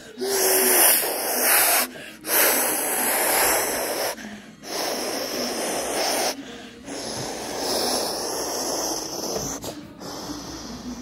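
A child imitating a jet engine with the mouth: long breathy hissing whooshes, about five of them, each broken off by a short pause for breath.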